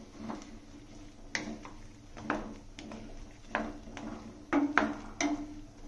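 A spoon stirring chunks of vegetable in a stainless steel Amway Queen pan: a run of irregular clicks and knocks of the spoon against the pan, the loudest coming near the end, over a faint steady hum.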